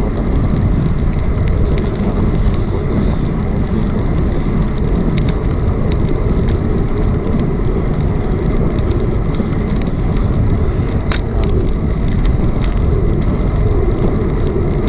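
Wind rushing over a bicycle-mounted camera's microphone while riding on the road: a loud, steady low rush mixed with tyre and road noise, with a few faint clicks.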